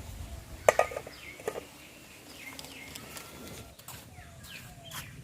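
Scattered short, falling bird chirps, with a few sharp knocks, typical of a utensil against a cooking pot.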